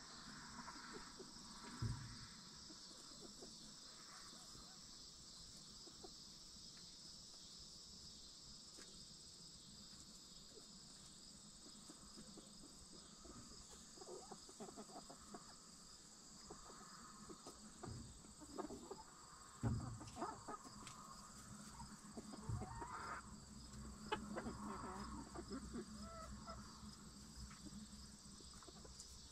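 Backyard hens clucking softly now and then, mostly in the second half, over a steady high-pitched insect chorus. A few low thumps are scattered through, the loudest about two-thirds of the way in.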